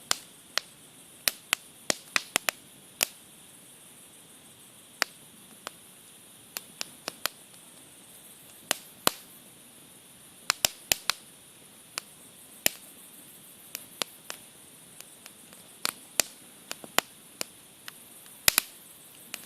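Campfire crackling: burning wood gives sharp, irregular pops and snaps, some single and some in quick clusters, over a faint steady hiss.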